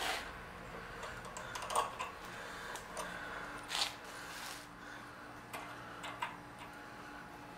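Irregular light metallic clicks from a hand tap and tap wrench being turned into the drilled center hole in the end of a small engine's output shaft, cutting threads. The sharpest clicks come about two and four seconds in.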